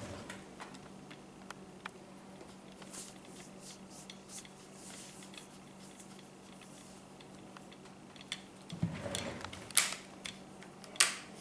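Small clicks and light scraping of a front sight being fitted and screwed down onto a gun chassis's Picatinny rail, with a rustle about nine seconds in and two sharp, loud clicks near the end. A faint steady hum runs underneath.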